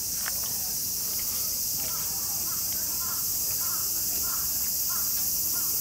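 Steady, high-pitched chorus of insects, with faint voices in the background.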